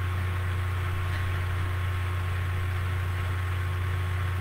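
Steady low electrical hum under a constant hiss: background noise of a webcam recording.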